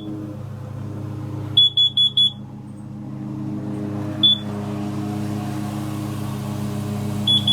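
Kidde KN-COB-LP2 combination smoke and carbon monoxide alarm sounding on test: a group of four quick high-pitched beeps, a single beep a couple of seconds later, then another group of four near the end, over a steady low hum.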